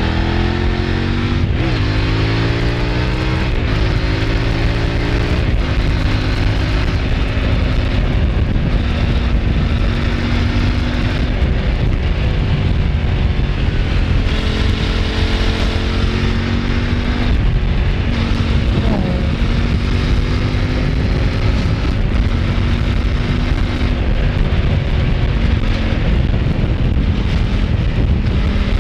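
Kove 800X Pro adventure motorcycle's parallel-twin engine accelerating through the gears, its pitch climbing and dropping back at each upshift, with wind noise on the microphone.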